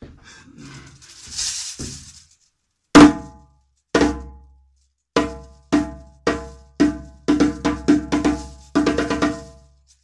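A new Lenke djembe with a goat-skin head, struck by hand: a hard single stroke about three seconds in, then strokes about a second apart that quicken into a faster run, each ringing briefly. A short rustling and shuffling noise comes before the first stroke.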